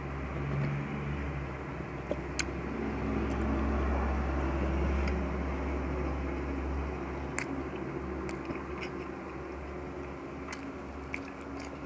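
A low, steady motor-like drone that swells in the middle and eases off after about seven seconds, under chewing with a few sharp clicks of the mouth and food.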